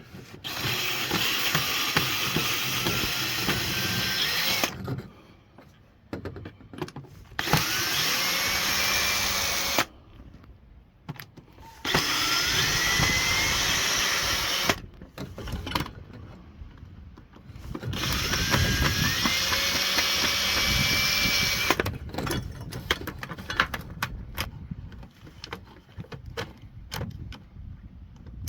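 Cordless drill-driver backing out screws in four runs of about three to four seconds each, the motor whine rising in pitch as each run starts, with quieter clicks and handling in between.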